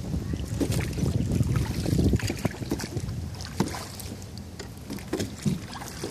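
Wooden oars of a rowing boat dipping and pulling through the water, with splashing and water swishing past the hull and a few short knocks. Wind buffets the microphone with a low rumble.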